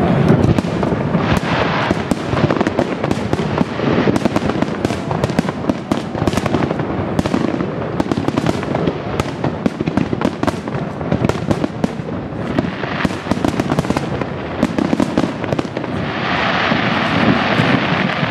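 Fireworks finale: aerial shells bursting one after another in a dense, unbroken run of bangs and crackles. Near the end a steadier hissing, crackling noise sets in over the bangs.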